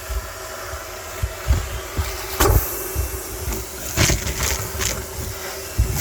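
Car wash vacuum cleaner running with a steady motor hum and low rumble, broken by irregular knocks and rattles.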